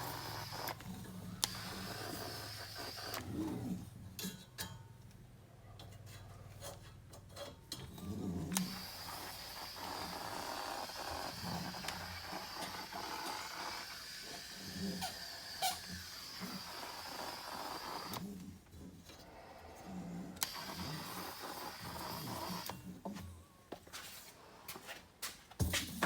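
Electrostatic powder coating gun spraying zinc primer powder: a steady air hiss that starts and stops in long runs as the trigger is held and released, with scattered clicks and knocks between runs.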